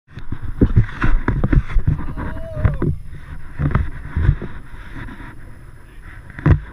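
Noise aboard a fishing boat at sea: rushing wind and water with irregular low knocks and thumps, the loudest about six and a half seconds in, and a brief squeak about two seconds in.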